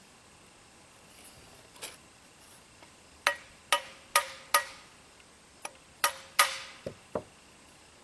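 Light taps on an old Briggs & Stratton carburetor to break its float bowl free from a gasket that is sticking. There is a single tap about two seconds in, then a run of four about half a second apart, then a few more near the end, some with a short metallic ring.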